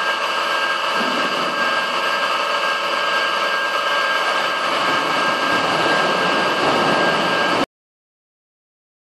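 Water rushing through a laboratory open-channel flume over a steady machine hum. From about a second in, the rush grows louder as the gate is lifted and a surge wave is released down the channel. The sound cuts off suddenly near the end.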